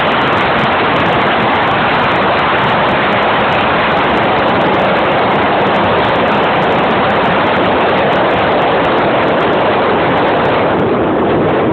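Steady wind rush on the microphone of a motorcycle at motorway speed, with the bike's running and road noise underneath.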